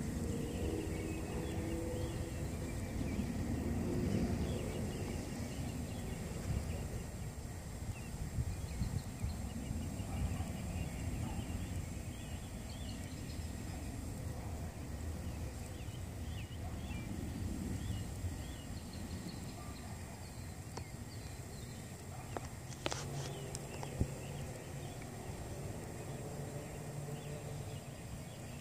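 Outdoor evening ambience: a low steady rumble that fades somewhat after the middle, with faint scattered bird chirps and a thin high steady tone. A couple of sharp clicks come near the end.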